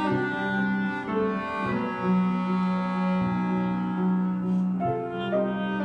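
Chamber quartet of flute, clarinet, piano and cello playing a slow contemporary classical piece, with a low note held for about three seconds starting about two seconds in.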